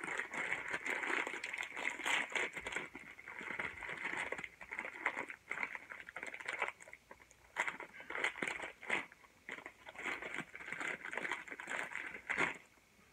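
Plastic wrapper of a 2x Spicy Hot Chicken Flavor ramen packet crinkling and crackling as hands work at it, in uneven bursts that stop shortly before the end.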